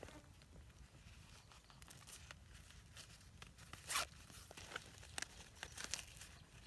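Faint handling noise of a dirty fabric wallet being opened and searched: soft scrapes and clicks, with one louder tearing rasp about four seconds in.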